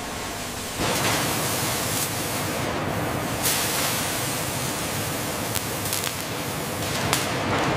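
Steady loud hissing rush of a CNC cutting torch cutting steel plate, jumping louder about a second in, with a few sharp crackles of flying sparks.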